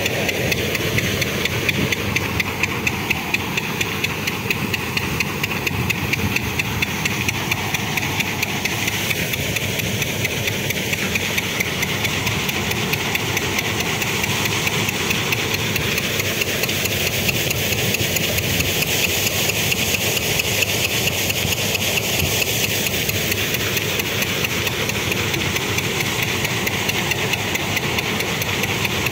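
Groundnut thresher running steadily under load, a loud continuous machine din with a fast, even clatter as the threshed peanut vines pass through it.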